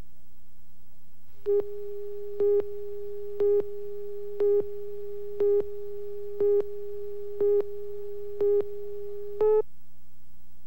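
Slate countdown beeps on a broadcast videotape: nine short beeps of one pitch, one a second, over a faint steady tone of the same pitch, the last beep slightly louder. A low steady hum runs underneath.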